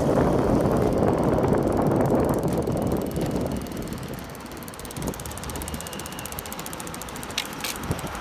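Exway Flex Riot electric skateboard's wheels rolling over rough asphalt, loudest for the first few seconds, then easing. From about three seconds in a fast, even ticking runs under the rumble: something has got caught in a wheel.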